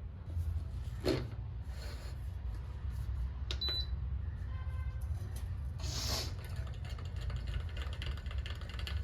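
Electric milk frother running, a steady low hum as it whisks milk, with a few light clicks and knocks of handling.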